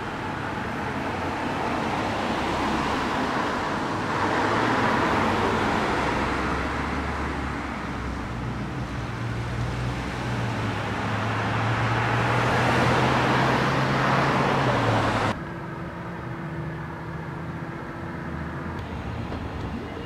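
Road traffic: cars passing, tyre and engine noise swelling twice as vehicles go by, with a low engine note that rises slowly. About 15 seconds in it cuts off suddenly to a quieter, steady low hum.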